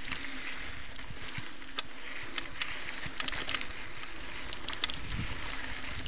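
Mountain bike rolling along a gravelly dirt singletrack: a steady rush of tyre noise with irregular clicks and rattles from stones and the bike.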